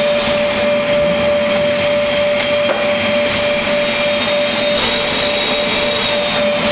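Automatic MDF panel-cutting saw machine running: a steady whine held on one pitch over constant loud machine noise.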